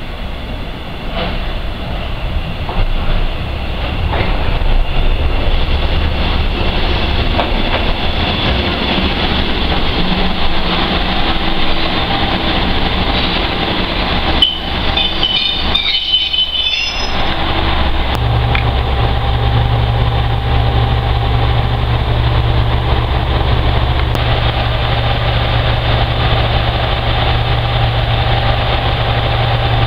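A Matsuura Railway diesel railcar pulls in along a covered platform: its engine and wheels grow louder over the first few seconds, with a brief high squeal around fifteen seconds in as it stops. After a short break it stands with its diesel engine idling, a steady low hum.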